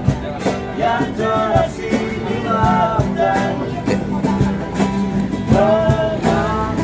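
A song: a singer with guitar accompaniment and a steady beat, the kind of song street buskers perform.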